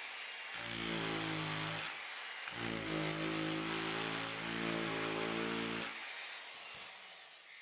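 Angle grinder fitted with a reciprocating power-chisel attachment, its cam driving the gouge in rapid blows as it carves a hollow in a block of wood. The rapid hammering comes in two long stretches with a short break between them over the steady motor noise, and the sound fades out near the end.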